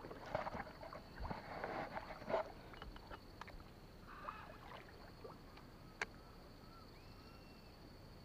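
Double-bladed kayak paddle dipping and splashing in calm water, several strokes in the first two and a half seconds, after which the water goes quieter.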